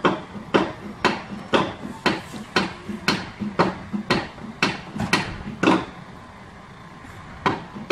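Repeated hammer blows at an even pace of about two a second, each with a short ring. They stop for about a second and a half near the end, then start again.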